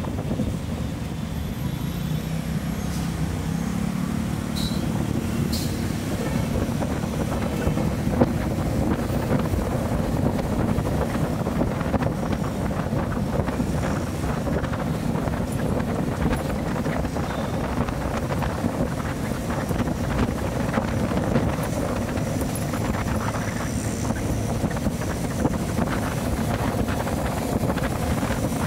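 Bajaj CT100's single-cylinder four-stroke engine running steadily as the motorcycle rides along, with wind noise on the microphone.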